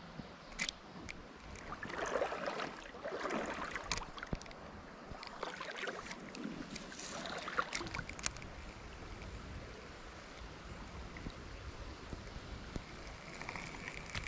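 Shallow creek water running over a riffle, a steady rushing babble, with a few louder splashy rustles and scattered sharp clicks.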